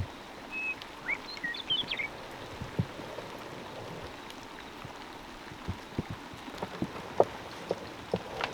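Rain falling, with scattered drops tapping that grow more frequent near the end. A few short high chirps sound about a second in.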